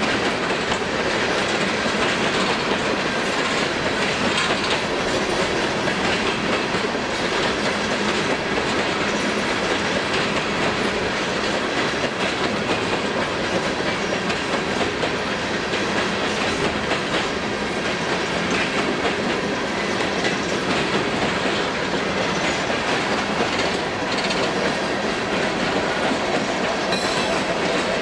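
Freight train hopper cars rolling past at close range: a steady rumble and clatter of steel wheels on the rails. Near the end, the train's rear locomotives come up alongside.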